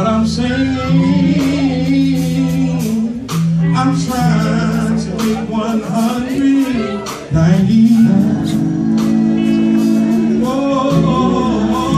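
Men's gospel quartet singing live into microphones over amplified guitar backing, held notes sliding between pitches.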